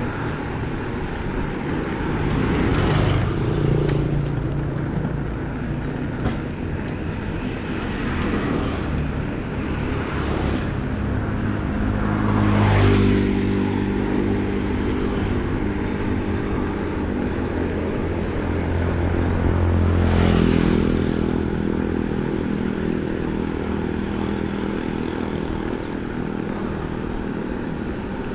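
Steady rolling noise of bicycle tyres on the road, with wind. Motor vehicles pass three times, a few seconds in, in the middle and past two-thirds of the way, each rising and fading.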